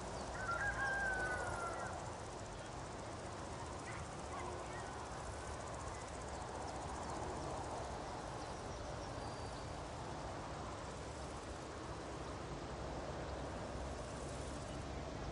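Outdoor meadow nature ambience: a steady, even background hiss. A short wavering call rings out about half a second in.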